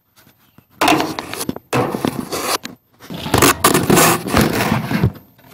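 Rubbing and scraping of fingers on a phone right at its microphone as the phone is handled and repositioned. It comes in three loud spells, the last and longest one near the end.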